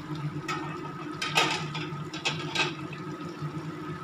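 Vegetables simmering in a little water in a kadai, bubbling and popping under a layer of freshly added chopped spinach, with a few sharp pops, the loudest about a second and a half in. A steady low hum runs underneath.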